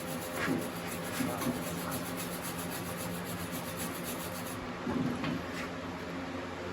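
Short scraping and rubbing strokes on metal, a few in the first second or two and a couple more about five seconds in, over a steady low hum.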